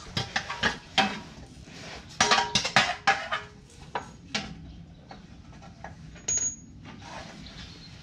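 Scattered metallic clinks and knocks while working under a car, with a quick cluster about two to three seconds in and a brief high squeak about six seconds in.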